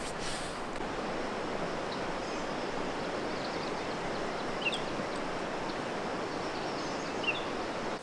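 Steady rushing of running water, an even hiss, with two faint high chirps, one about halfway through and one near the end.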